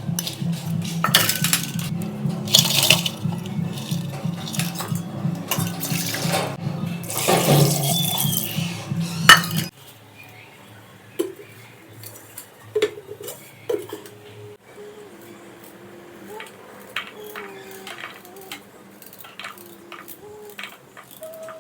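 Cooking pot and utensils clattering and scraping, with a steady low hum under them that stops abruptly about ten seconds in; after that only scattered light ticks and clinks.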